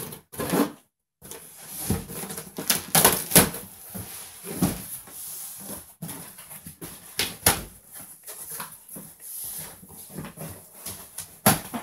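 Large cardboard shipping box being handled and opened: irregular scraping and crackling of cardboard flaps and rustling of plastic packing, with a short dead-silent gap about a second in.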